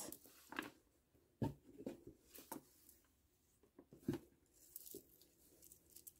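Faint, scattered clicks and rustles of plastic pony beads and string being handled and pulled tight on a tabletop, the loudest about a second and a half in and another at about four seconds.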